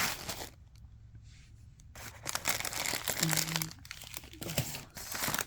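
Packaging being crinkled and torn open by hand as a small advent-calendar gift is unwrapped. It is busy at first, eases off briefly, then picks up again with more crinkling and tearing from about two seconds in.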